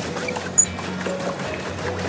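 Background music with sustained notes and a single sharp, high click about half a second in.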